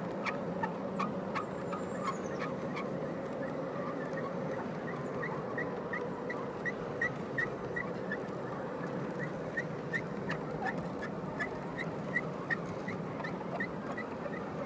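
G scale model hopper cars rolling past on curved track: a steady wheel rumble with regular clicks of wheels over rail joints, about three a second. From about four seconds in, a short high wheel squeak repeats at about the same pace.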